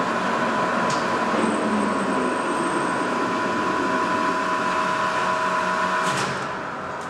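Leblond model NI gap bed lathe running under power with a large faceplate on its spindle: a steady hum and whine, running smoothly. About six seconds in the sound drops noticeably, with a brief rattle.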